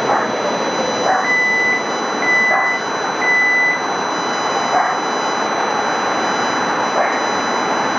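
Steady rumble of passing rail traffic, with three short high beeps about a second apart in the first few seconds.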